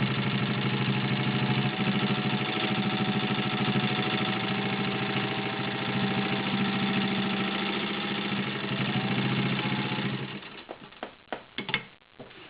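Singer 15-91 sewing machine's potted motor running at steady speed, stitching through six layers of denim. It dips briefly in speed about nine seconds in and stops about ten seconds in, followed by a few light clicks and taps.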